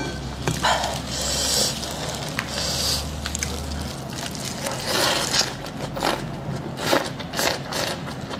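Crisp lettuce leaves rustling and crackling as meat is wrapped in them by plastic-gloved hands, then crunchy bites and chewing of the lettuce wrap in the second half.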